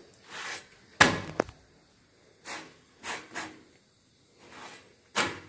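A rotti being handled and flipped by hand on an iron tawa: a sharp knock about a second in, then several soft pats and brushes, and another sharp knock near the end.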